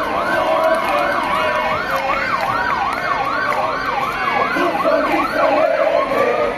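Vehicle siren sounding a fast yelp, about three rising sweeps a second, which stops about six seconds in.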